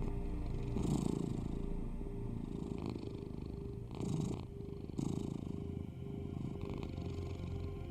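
A cat purring steadily over a low, steady drone of binaural tones.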